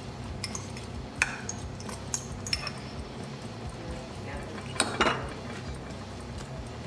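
Cutlery clinking and scraping on plates and a bowl, scattered clicks over a steady low room hum, with a louder clatter about five seconds in.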